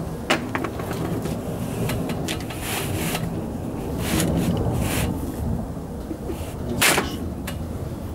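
A FixTool manual rail tile cutter being worked on porcelain stoneware tile: scraping, clicks and knocks over a low steady rumble, with one loud sharp crack about seven seconds in.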